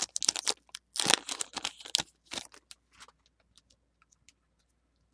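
A foil Pokémon card booster pack being torn open and its wrapper crinkled, a flurry of rustling that dies away after about two and a half seconds, followed by a few faint clicks of the cards being handled.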